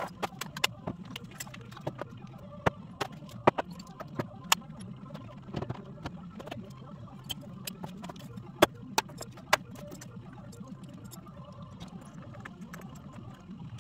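Loose metal hardware (bolts, nuts and washers) clinking and rattling as it is picked through and sorted by hand on a van's metal cargo floor, with frequent irregular sharp clicks.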